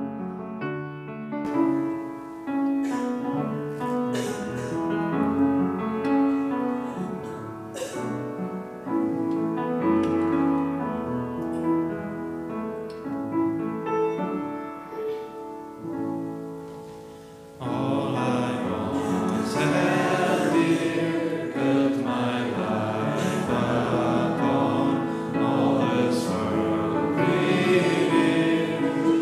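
Piano playing alone, then a little past halfway a choir of voices comes in singing with the piano, and the music grows louder.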